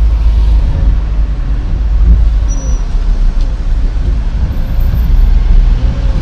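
Car engine and road noise heard from inside a moving taxi's cabin: a steady low rumble.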